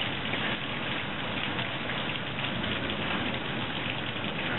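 Heavy storm downpour during a hailstorm, pelting roofs, fence and paving in a dense, steady patter of small impacts.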